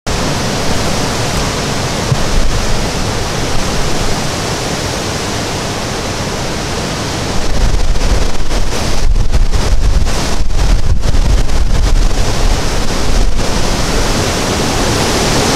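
Hurricane-force wind blowing hard through trees, with heavy wind buffeting on the microphone. The gusts get stronger about halfway through.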